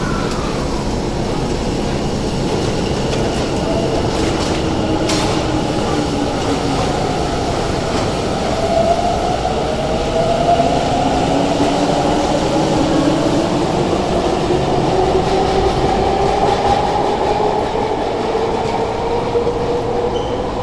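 Subway train pulling out of an underground station and accelerating. Its traction motors whine in rising pitch over the running rumble of wheels on rail, with a single sharp click about five seconds in.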